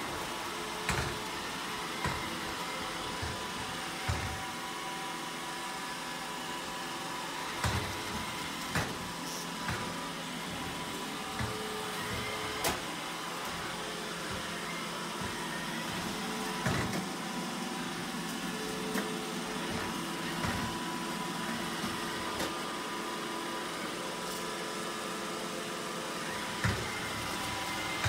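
Roomba robot vacuum running across a tile floor: a steady whir with a faint whine, broken by irregular knocks every second or two.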